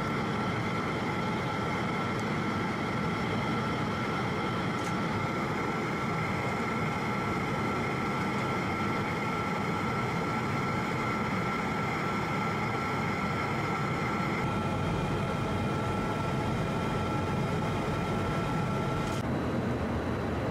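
Steady aircraft engine drone with a constant high whine, heard from on board. The whine cuts off abruptly near the end.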